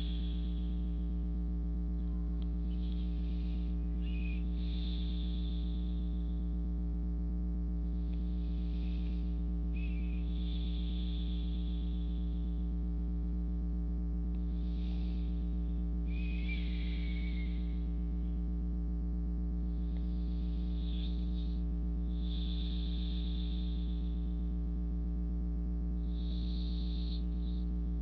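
Slow, deep breathing close to the microphone: about five breaths, each a short inhale followed by a longer exhale, every five to six seconds. A steady low hum runs underneath and is the loudest sound.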